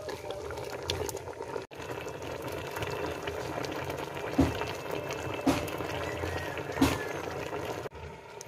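Lechon paksiw sauce boiling hard in a large pot as it reduces: a steady thick bubbling, with three louder pops partway through.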